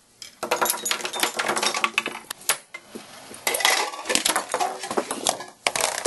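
Dense clatter of a homemade chain-reaction contraption running: pencils, ping pong balls and plastic cups falling, rolling and bouncing on tabletops as many quick small knocks and clinks, starting just after the beginning, with a short lull about three seconds in.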